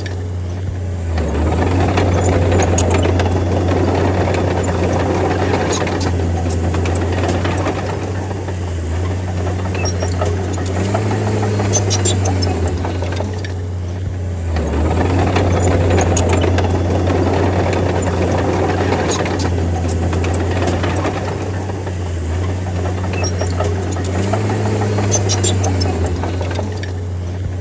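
D30 bulldozer's diesel engine running under changing load, its low drone stepping up and down in pitch and swelling and easing in loudness several times as it pushes, with occasional light clicks over it.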